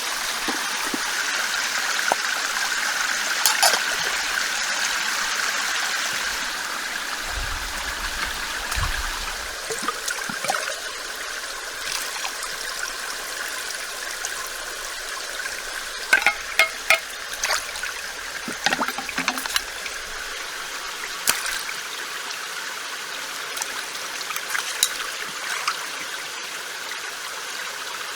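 A stream running steadily, with scattered sharp clicks and knocks over it, several in quick succession about two-thirds of the way through.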